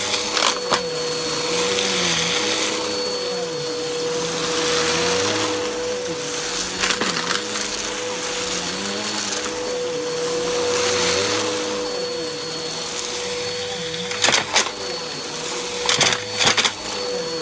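Upright vacuum cleaner running on carpet with its brushroll spinning: a steady motor whine over rushing air. The lower hum dips and rises in pitch with each push and pull across the pile. A few sharp clicks come near the end.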